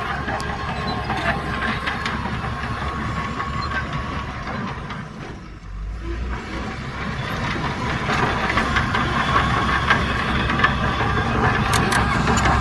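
Heavy diesel earthmoving machinery running at a worksite. The engine noise dips briefly about halfway through, then builds back up and grows louder toward the end.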